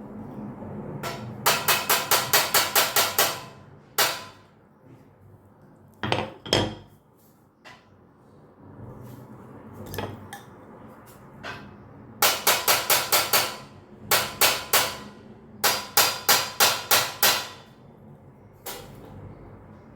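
Hammer blows driving a tight push-fit section of a clothing rack into place, in several quick runs of about four to five strikes a second with single knocks between. The joint is very stiff and will not seat easily.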